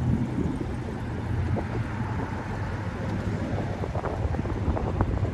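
Wind buffeting the microphone, over a low steady hum.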